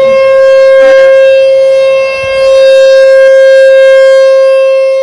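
American Signal Tempest T-128 electromechanical siren sounding its steady Alert tone: one unwavering pitch, very loud. Its level dips about two seconds in and falls off near the end as the rotating directional horn sweeps past and away.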